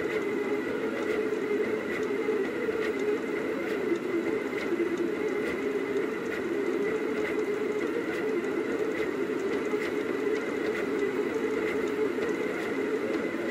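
Rostock delta 3D printer running as it prints: a steady whir from its motors, with a thin high tone and faint irregular ticks.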